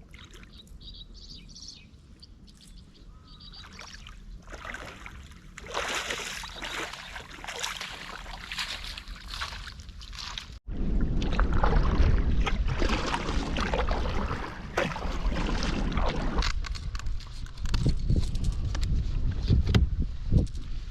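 Kayak moving on the water, with water swishing against the hull; the sound grows louder and heavier down low from about halfway. A few bird chirps sound near the start.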